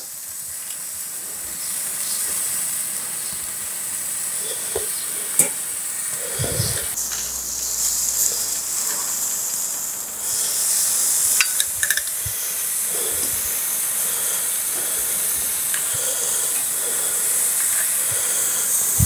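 Spatchcock chicken sizzling on a hot grill grate: a steady hiss, with a few sharp clicks of metal tongs against the grate about five seconds in and again around eleven to twelve seconds in.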